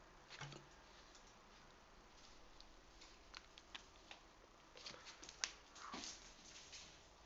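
Faint, scattered clicking and tapping of a Jack Russell terrier's claws on a tiled floor as it scrabbles and runs off, busiest and sharpest about five seconds in.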